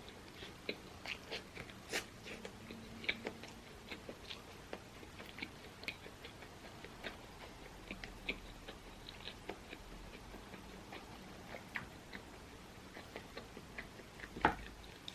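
A person chewing and eating food close to the microphone: many small wet mouth clicks, with one louder click near the end.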